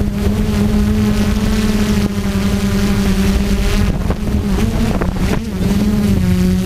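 DJI F450 Flame Wheel quadcopter's motors and propellers buzzing loudly and steadily, heard from the camera on board. About five seconds in the pitch wavers and shifts as the motors change speed while it comes down low, then it steadies again.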